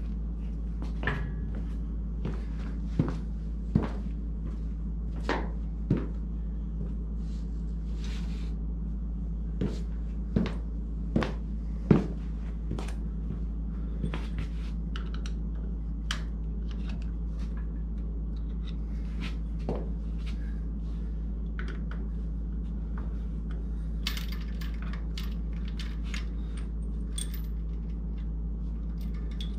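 Hand tools clinking and knocking against metal engine and car parts: scattered sharp clicks, busiest in the first twelve seconds, over a steady low hum.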